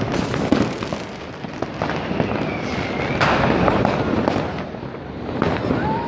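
Fireworks and firecrackers going off: a dense, continuous run of bangs and crackling pops in quick succession.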